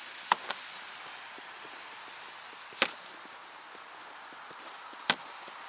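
Four sharp, brief clicks or knocks at irregular intervals, the loudest about three seconds in, over a steady hiss.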